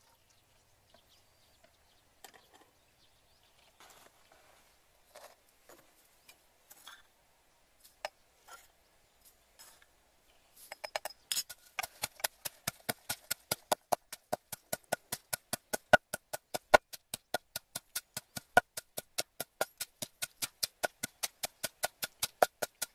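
Wooden pestle pounding chilies and garlic in a wooden mortar: a steady train of sharp knocks, about three a second, starting about halfway through. Before that there are only a few faint, scattered knocks.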